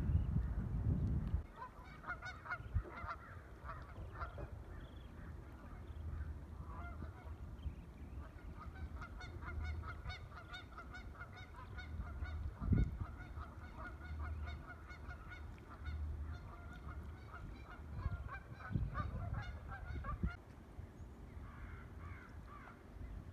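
Waterfowl calling: runs of short, quick, repeated calls, a first burst a couple of seconds in and a longer run from about nine to twenty seconds. Beneath them is a low rumble, loudest in the first second or so, and a single dull thump near the middle.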